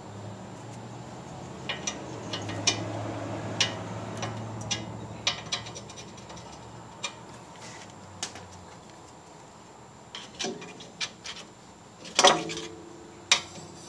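Irregular metal clicks and taps from hand work on a car's front brake rotor and hub, with a louder metal clank near the end and another a second later.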